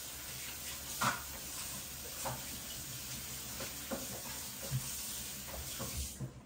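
Knife slicing a block of butter, with soft knocks as pieces drop into a bowl of beaten egg, over a steady hiss that stops near the end.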